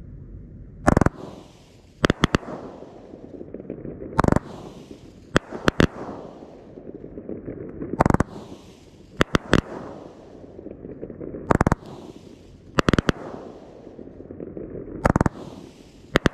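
Consumer firework cake of gold brocade mines with red strobe, fired in five volleys about three and a half seconds apart. Each volley is a deep launch thump, then about a second later a quick cluster of sharp bangs as the shells break, with a steady crackle and hiss from the strobe and brocade effects between.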